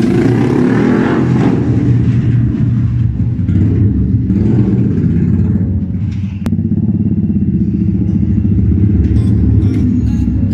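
Yamaha R15 V1's 150 cc single-cylinder four-stroke engine through an Akrapovic aftermarket exhaust, revving hard as the bike pulls away inside a small tunnel. Its loudness dips briefly around the middle, then the engine note picks up again.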